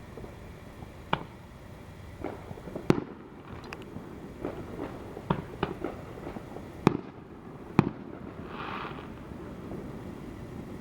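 Fireworks going off: sharp bangs and pops at irregular intervals, about six loud reports among smaller ones, with a short hiss near the end.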